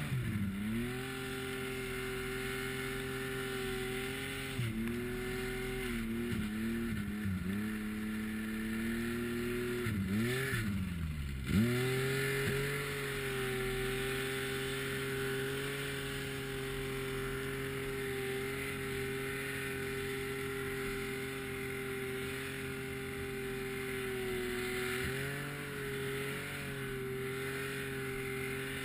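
Snowmobile engine running at steady revs. The revs dip and waver a few times; near the middle they fall away and then pick up sharply, the loudest moment.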